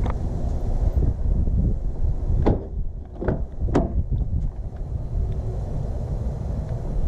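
Rear door of an Infiniti G37 sedan being opened: three sharp clicks of the handle and latch within about a second and a half, over a steady low rumble.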